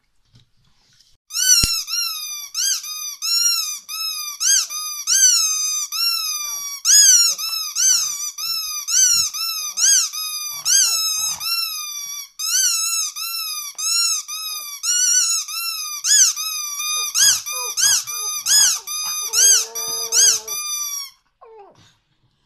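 Rubber squeaky toy squeezed over and over, two or three high squeaks a second, each rising and falling in pitch, with one lower squeak near the end before it stops abruptly.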